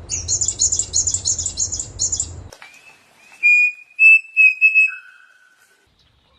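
Bird calls: a rapid, high-pitched chattering for about two and a half seconds, then after a short pause a few clear whistled notes, the last one lower.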